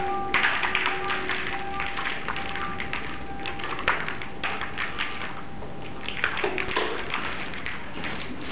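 Short spells of rapid tapping and clicking, over faint sustained tones like background music.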